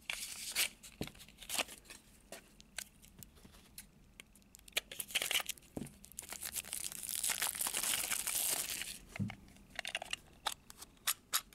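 Packaging of a mystery toy pack being torn open and handled: crinkling and tearing with scattered small clicks, and a longer stretch of tearing from about six and a half to nine seconds in.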